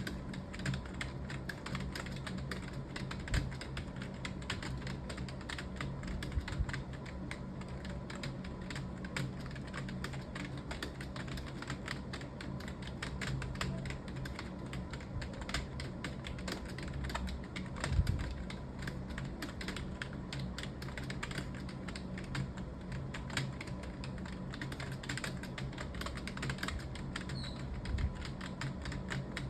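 Fast, continuous typing on a computer keyboard, many key clicks a second, with a few heavier key strokes standing out.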